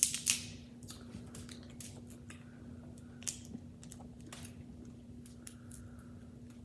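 Close-miked eating of crab and lobster: scattered wet mouth clicks and smacks with small taps of shell, loudest in the first half second, over a steady low hum.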